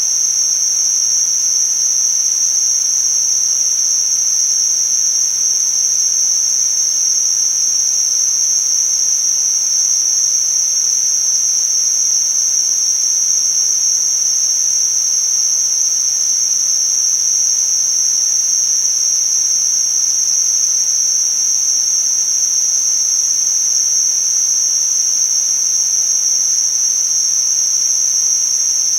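Tinnitus masking sound: a steady, high-pitched hiss held in one narrow pitch band over a fainter, wider hiss, unbroken and unchanging throughout.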